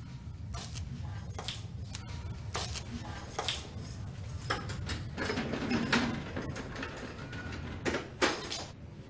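Footsteps climbing tiled stairs, uneven steps about one or two a second, the loudest near the end, over a low steady hum.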